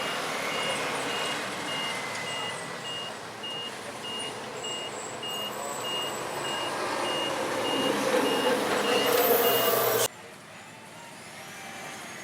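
A heavy road-works vehicle's reversing alarm beeps about twice a second over the noise of its diesel engine. The engine grows louder toward the end, then everything cuts off abruptly about ten seconds in.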